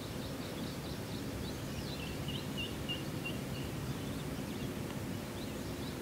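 Faint high peeping of mallard ducklings: scattered short notes, then a run of about six evenly spaced peeps around the middle, over a steady low background rumble.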